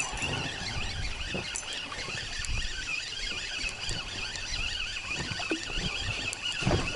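Spinning reel being wound in steadily while a hooked fish is played, a continuous squeaky whir, with wind rumbling on the microphone.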